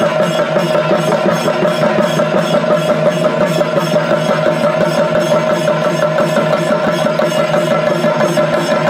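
Thira ritual percussion ensemble: chenda drums beaten in a fast, unbroken roll, with a steady held note above them.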